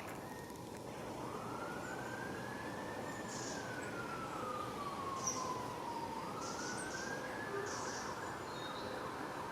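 An emergency-vehicle siren in a slow wail: its pitch rises, falls and rises again before fading, over a steady background hiss.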